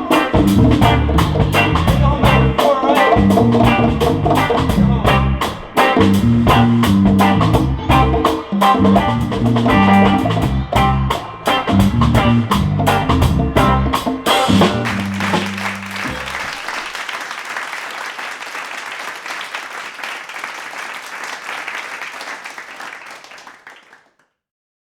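Instrumental outro of a reggae song: bass line, drums and guitar, ending about fourteen seconds in on a held bass note. A noisy wash then fades out over about ten seconds into silence.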